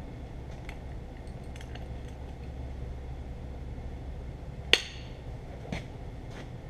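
Hand wrench working on the bolts of a tractor's cast-iron brake cover: a few light metallic clicks, then one sharp clink of steel on metal about two-thirds through and a smaller one a second later, over a steady low hum.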